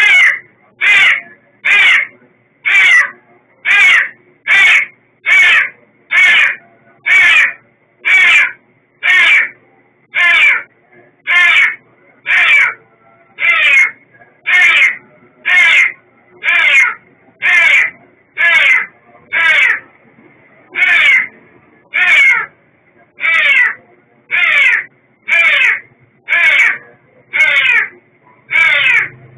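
Kitten meowing over and over in short, high cries, about one a second: the distress calls of a kitten trapped alone.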